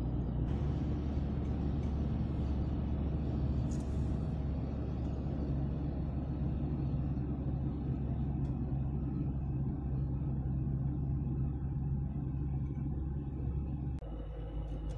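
A car driving steadily on an open road, its engine and tyre noise heard from inside the cabin as a steady low drone. The drone shifts in pitch abruptly near the end.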